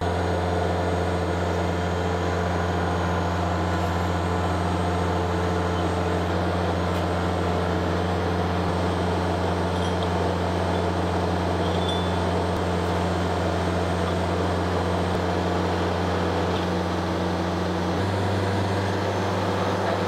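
Bobcat skid-steer loader's diesel engine running steadily, powering the hydraulic drive head; the engine note steps up slightly near the end.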